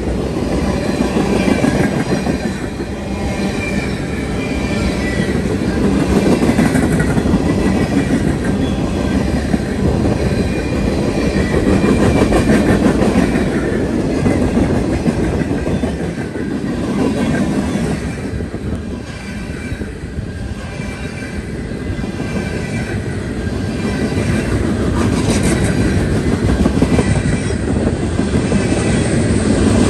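Freight train cars rolling past close by: a steady rumble and clatter of steel wheels on the rails, rising and falling slightly as the cars go by, with a faint high wheel squeal in the first half.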